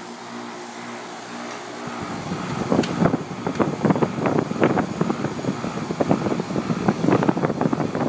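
Outdoor condenser unit of a Bryant 561CJ048 central air conditioner running: a steady electrical hum, then from about two seconds in a louder rush of air from the condenser fan, gusting and crackling on the microphone. The fan is spinning again on its newly replaced dual-run capacitor.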